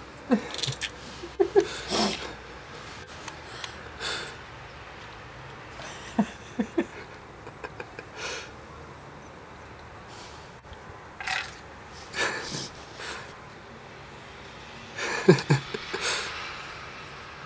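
Lop-eared rabbit snorting and sneezing in short, separate puffs as it pushes its nose into snow, about a dozen spread irregularly, with a louder, lower snort near the end.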